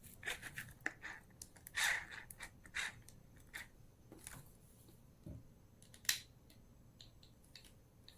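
Plastic spin scrubber brush heads being handled and pushed onto the scrubber head: irregular clicks and scrapes of plastic, with one sharp click about six seconds in.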